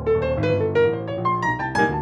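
Dexibell Vivo S7 digital piano played four-handed: a quick run of single notes climbing up the keyboard over held low chords.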